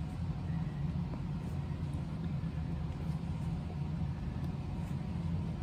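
Steady low background hum.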